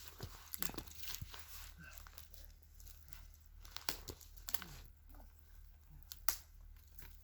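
Faint, irregular crunching and rustling of footsteps through snow and brush.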